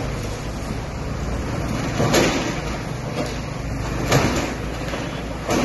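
Excavator running steadily on a demolition, with short crashes of debris about two seconds in, about four seconds in and again near the end.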